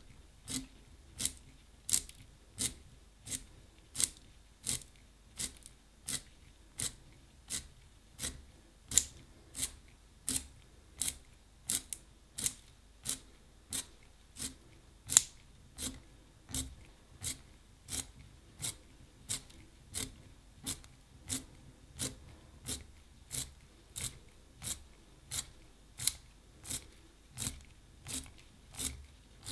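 Wooden pencil being twisted in a small handheld blade sharpener, the blade shaving the wood and graphite: a regular run of short, dry scraping strokes, about three every two seconds, one per turn of the pencil.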